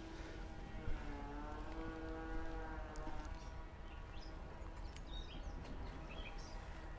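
A distant engine drones steadily, dips in pitch about a second in, then fades out a little past the middle. Short bird chirps follow in the second half over a low outdoor rumble, with a soft knock about a second in.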